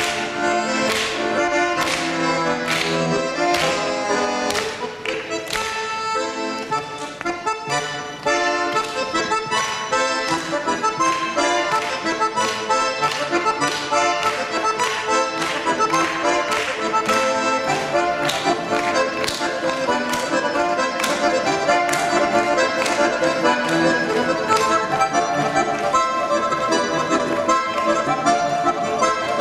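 Solo button accordion playing a lively folk-style tune, with sharply accented chords and runs of quick notes; it eases into a softer passage about five to eight seconds in, then plays on at full strength.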